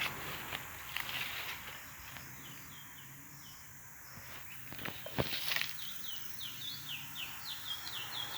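Wild curió (chestnut-bellied seed finch) singing the regional Rondônia song: a few scattered notes early, then a quick run of short, falling whistled notes in the last few seconds. A brief rustle or knock comes about five seconds in.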